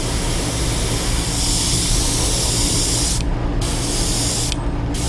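Gravity-feed airbrush spraying paint with a steady hiss. The hiss stops briefly twice, about three seconds in and again near the end, as the trigger is let off.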